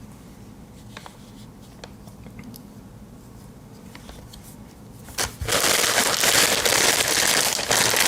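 A few faint small ticks, then about five seconds in a sudden loud, dense crinkling and crumpling of parcel packaging being pulled open by hand.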